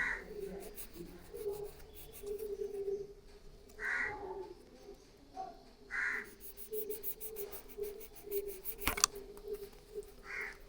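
A crow cawing: four single caws a few seconds apart. There are faint fine clicks in between and one sharp click about nine seconds in.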